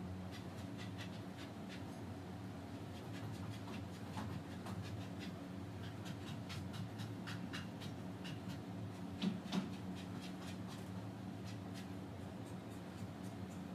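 Macramé cord rustling and rubbing as hands pull and knot it, with scattered small clicks and two louder taps close together about nine seconds in, over a steady low hum.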